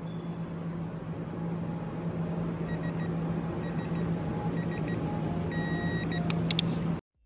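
Workshop background with a steady low hum, joined from about two and a half seconds in by short, repeated electronic beeps. A few sharp clicks come near the end, then the sound cuts off abruptly.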